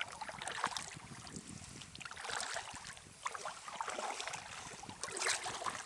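Kayak paddle strokes: water splashing and dripping as the blade dips in and lifts out, coming in uneven crackly bursts.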